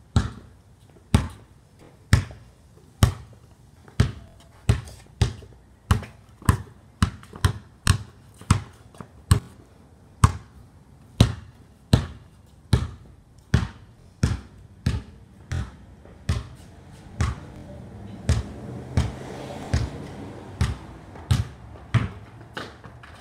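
Basketball dribbled on a concrete driveway: a steady run of sharp bounces, about one a second at first and nearer two a second in the middle. A soft rushing noise swells and fades about two-thirds of the way through.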